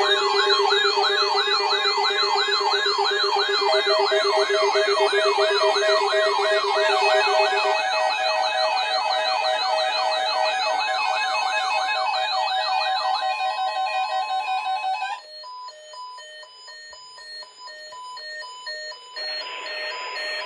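Electronic siren warbling fast, about three and a half sweeps a second, over music-like steady tones. It cuts off suddenly about fifteen seconds in, leaving quieter tones, and a hissing buzz joins near the end.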